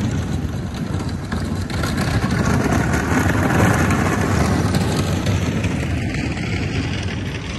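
A motorcycle engine passing on the street, growing louder to a peak about halfway through and then fading.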